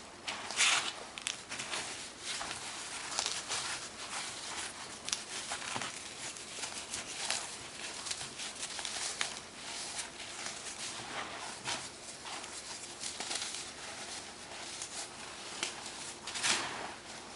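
Chunks of baking soda being crushed: continuous crisp crunching and crumbling, with louder crunches about a second in, around three seconds in and near the end.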